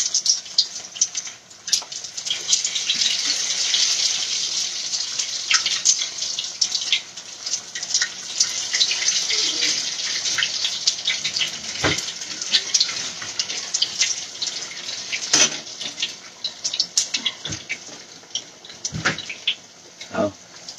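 Salmon croquettes frying in a skillet of hot oil: a steady sizzle full of small crackles and pops, with a few sharp knocks from utensils about halfway through and near the end.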